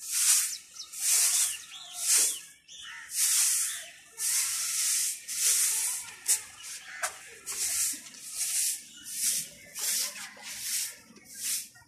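Short grass hand broom sweeping a stone-tiled floor: a swishing stroke roughly every second, a few drawn out longer.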